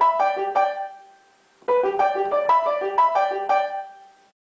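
Piano music: a short phrase of quick notes that dies away about a second in, then plays again and stops suddenly near the end.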